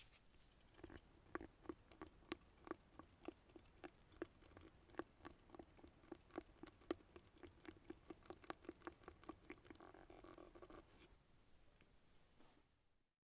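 Light, rapid, irregular clicks and taps, several a second, stopping about eleven seconds in.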